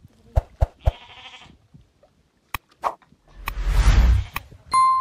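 A sheep or goat bleats once about a second in, with a few sharp knocks around it. Near the end comes a loud whooshing rush, then a ringing bell ding: the sound effect of a subscribe-button pop-up.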